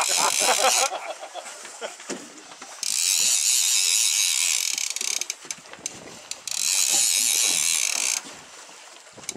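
Multiplier fishing reel on a heavy boat rod ratcheting in bursts of a couple of seconds, with quieter gaps between them, as a hooked small shark pulls on the line. Three bursts: the end of one just under a second in, then two longer ones.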